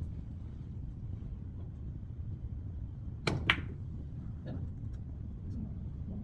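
Carom billiards shot: two sharp clicks of the cue and balls striking, about a fifth of a second apart, a little past the middle. A few faint knocks follow as the balls travel.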